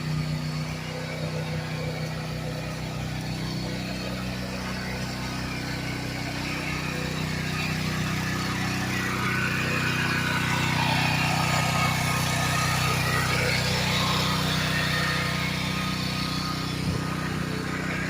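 A small engine running steadily, with a rushing noise that swells in the middle and fades again.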